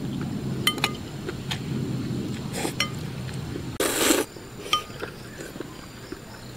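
Chopsticks clinking against a ceramic bowl several times, each clink with a short ring. About four seconds in comes a loud slurp of instant noodles.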